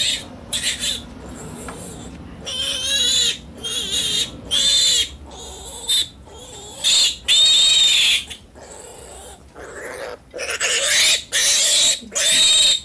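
Piglets squealing again and again in loud, high-pitched cries, some short and some over a second long, as they are caught and held for an iron injection.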